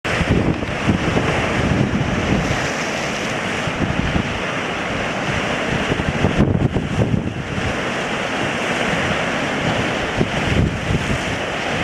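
Strong wind blowing in uneven gusts, with low rumbling buffeting, cutting in suddenly at the start.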